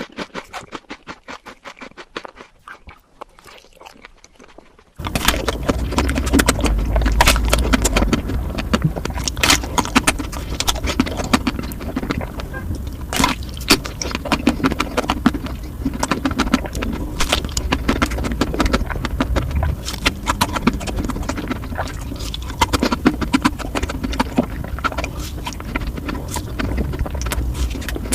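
Close-miked eating of sweets: dense clicking and crunching chewing sounds, fairly quiet at first, then suddenly much louder with a low rumble underneath from about five seconds in.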